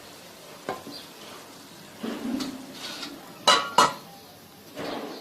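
Metal spoon stirring tomatoes into the curry in a cooking pan, scraping and clinking against the pan. There are two loud sharp clanks about three and a half seconds in and a softer one near the end.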